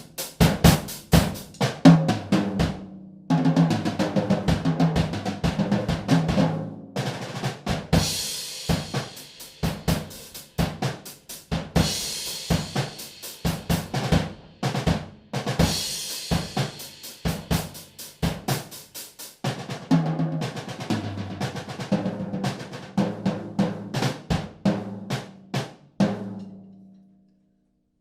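A cheap second-hand drum kit in poor, untuned shape being played: snare, bass drum and toms in a busy groove with fast fills and cymbal crashes every few seconds. The snare's lugs are stripped and the toms are mounted upside down. The playing stops near the end, leaving a drum ringing.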